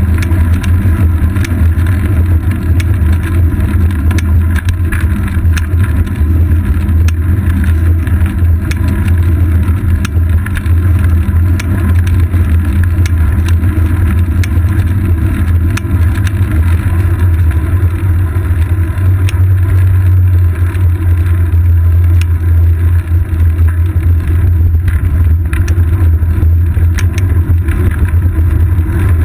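Wind and road rumble on a bicycle's seat-post-mounted GoPro Hero 2 in its housing: a loud, steady low rumble as the bike rolls over asphalt, with scattered small clicks from bumps.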